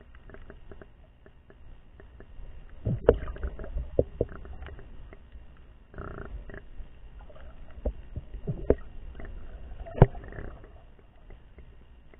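Muffled underwater sound picked up by a submerged camera: a low rumbling wash with scattered knocks and clicks, the loudest about three and ten seconds in, over a faint steady high whine.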